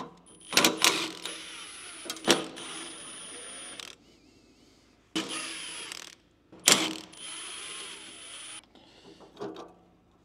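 Cordless power driver with a 10 mm socket spinning bolts: three runs of a high motor whine, the first about three and a half seconds long, a short one about five seconds in, then another of about two seconds, each opening with a sharp clack as the socket engages.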